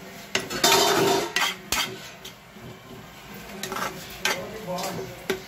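A spatula stirring and scraping chopped onions and green peppers around a frying pan in quick, irregular strokes. The strokes are loudest about a second in, ease off midway and pick up again near the end.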